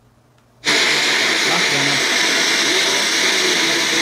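FM radio of an MLOVE BV800 portable speaker muting as its tuner steps to a new frequency. After about two-thirds of a second it cuts back in with loud, steady static hiss, the sound of an empty or weak frequency.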